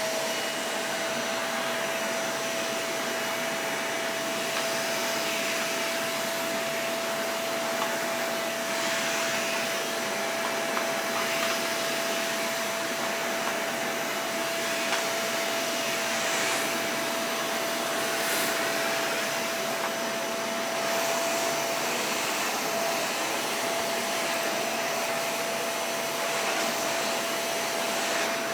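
Vacuum cleaner running steadily: a constant motor whine over the rushing of air, with a few faint swells in the airflow.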